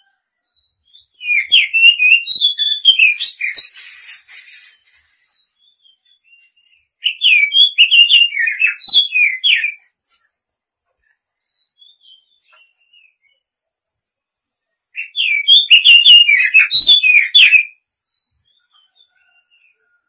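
Oriental magpie-robin singing: three phrases of quick, varied whistled notes, each about three seconds long, separated by pauses.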